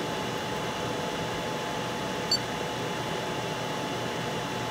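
Cooling fans of a Mingda Magician X2 3D printer running with a steady whir while the hot end is heated for filament loading. A single small tick comes about two seconds in.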